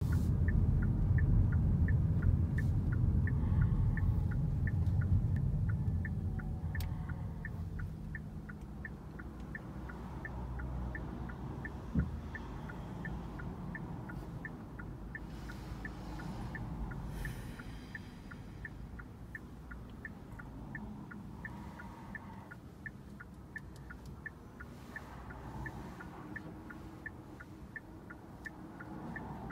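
A Kia's turn-signal indicator ticking steadily inside the cabin over low road and engine rumble. The rumble is louder for the first six seconds, then quieter, and a single knock comes about twelve seconds in.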